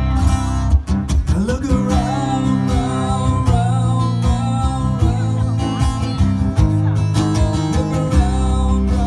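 Solo guitar playing a folk tune live through a PA: plucked melody notes over steady low bass notes, with notes bending in pitch about a second in.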